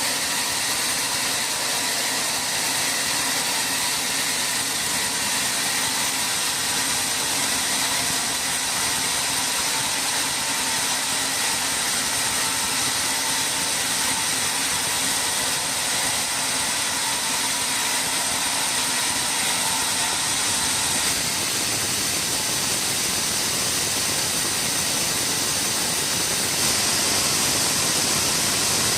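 Sawmill machinery running steadily: a constant mechanical hiss with faint steady whining tones. It shifts slightly about two-thirds of the way in and gets a little louder near the end.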